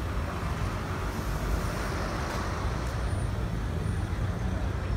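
Steady city road traffic: vehicle engines running, among them a red double-decker bus.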